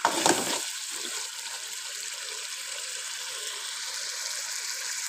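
Chicken masala curry sizzling and bubbling in a karahi as the last of its water cooks off and the oil separates, the bhuna stage just before it is done. There is a brief stir of the spoon right at the start, then a steady hiss.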